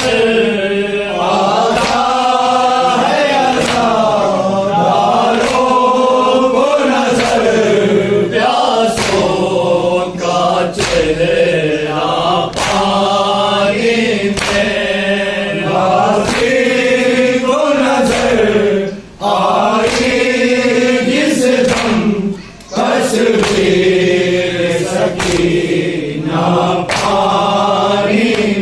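A group of men chanting a noha (Shia mourning elegy) in unison, with matam chest-beating slaps striking in time about once a second. The chant breaks off briefly twice in the second half.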